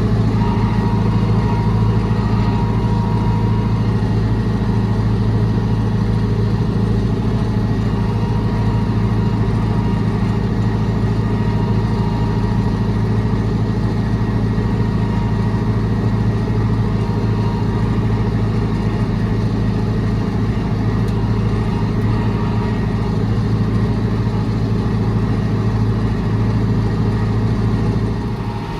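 Vehicle engine running at a steady speed, a constant low drone with a faint steady high whine above it.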